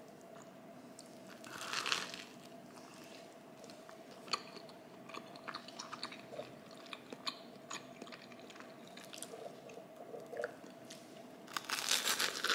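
Bites into crisp air-fried toast: a loud crunch about two seconds in and another near the end, with small crackles and clicks in between.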